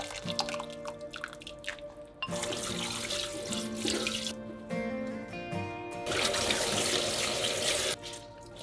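Water dripping into a pot, then a kitchen tap running into a stainless steel sink as a cotton cooking cloth is rinsed of baking soda under it. The tap runs in two spells, about two seconds in and again from about six seconds, and cuts off near the end.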